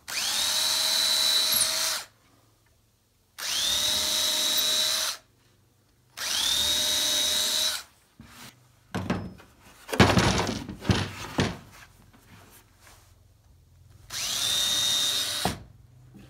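Power drill pre-drilling nail holes through the spruce finger joints of a box, so the wood is less likely to crack. It makes four short runs; each spins up to a steady whine and stops after about two seconds. Between the third and fourth runs come a few seconds of knocks and clatter, the loudest near the middle.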